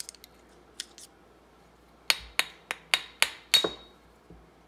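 Six sharp metallic taps, about three a second, from a screwdriver working against a transaxle shifter fork to get the broken detent spring out of its bore. The last tap rings briefly. A few faint clicks come before them.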